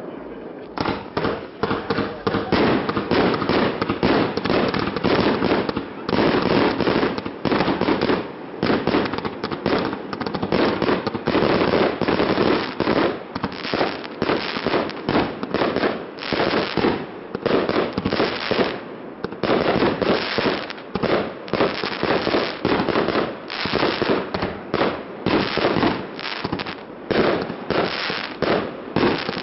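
Fireworks barrage: aerial bursts going off in quick succession, many bangs a second with crackling between them, starting about a second in and continuing with only brief pauses.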